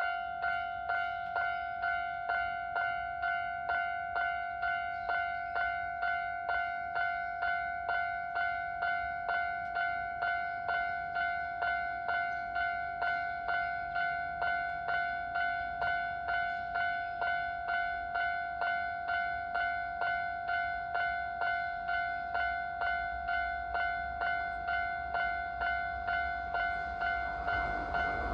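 Japanese level-crossing warning bell ringing, an electronic clanging tone repeating about three times every two seconds. Near the end the rumble of an approaching train rises beneath it.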